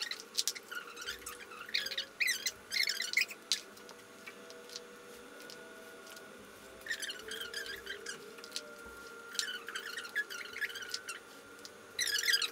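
Rope being pulled through and wrapped around a shibari knot: scratchy rustling and light squeaking of natural-fibre rope rubbing on itself and on clothing. It comes in several spells with quieter gaps between them.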